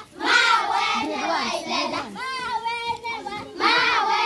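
Children singing a melody in held, sung phrases, with a short break about three and a half seconds in.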